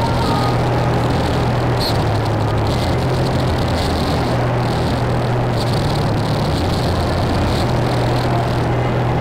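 Dark ambient noise music: a dense, distorted wall of noise over a low steady drone, with a hissing layer that swells and fades at uneven intervals.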